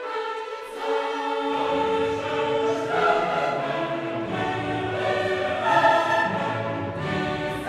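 Background music: a choir singing sustained notes, with deeper parts coming in about a second and a half in.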